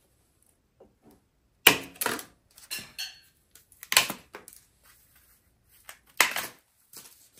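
Zip ties being snipped off with cutters: several sharp snaps a second or two apart.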